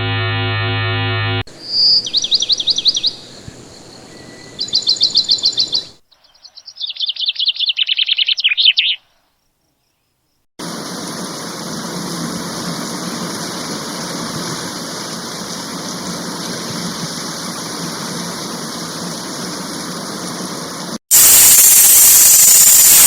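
A string of separate sounds: a brief low buzzing hum, then birds singing in fast, high chirping trills, a short silence, a steady hiss, and finally loud static near the end.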